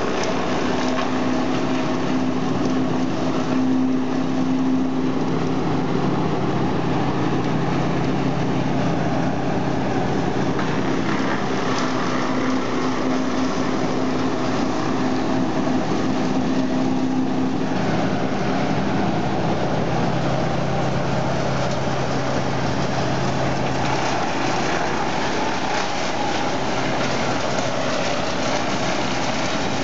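Industrial wood chipper running, a steady, loud engine drone with dense noise over it and small shifts in tone over time.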